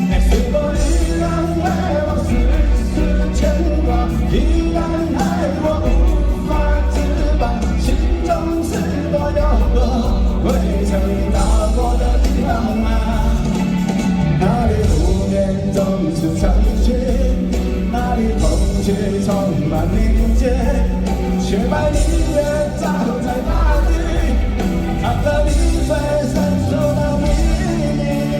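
Live rock band playing loud through a concert sound system, with heavy bass and drums under a melodic lead line.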